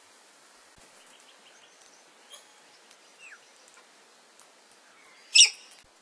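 Bird calls: scattered faint chirps and short whistles, then one loud, harsh, short call near the end.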